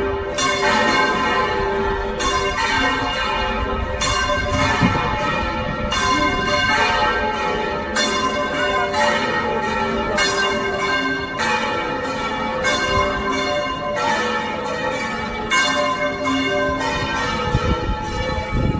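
Church bells ringing, one strike following another about every half second to one second, each stroke ringing on under the next.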